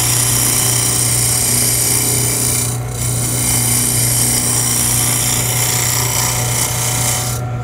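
Roughing gouge cutting a spinning wooden spindle blank on a wood lathe turning at about 1800 RPM: a steady hiss of shavings being cut over the hum of the lathe motor, with a brief break about three seconds in. The cutting stops near the end while the lathe keeps running.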